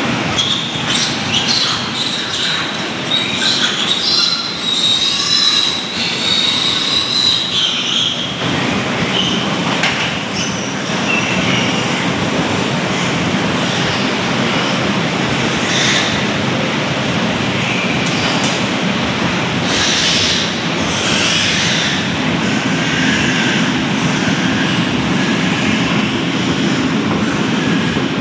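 Newborn piglets squealing as they crowd and jostle at a nursing sow's teats, over a steady noisy din; the shrillest squeals come in the first several seconds.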